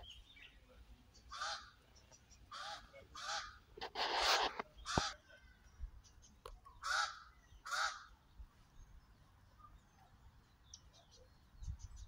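Crows cawing: a series of about seven harsh caws at irregular intervals, the loudest around four seconds in, then quieter toward the end.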